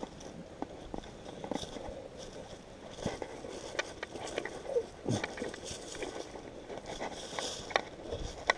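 Footsteps of a hiker climbing a steep trail: irregular crunches, scuffs and snaps underfoot.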